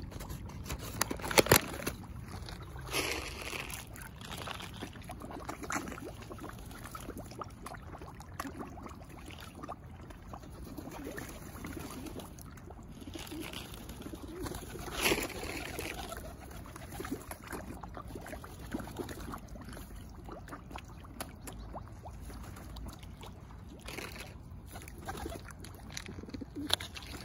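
Pigeons cooing, with scattered sharp clicks and knocks over a low steady background haze.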